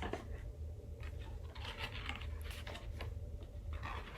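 Light rustling and tapping as album packaging and paper inserts are handled, over a steady low hum.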